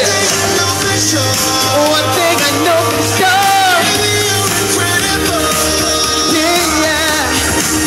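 Live pop music over a sound system: a male voice sings a melody over a loud backing track with a steady bass line, which drops to a lower note about five seconds in.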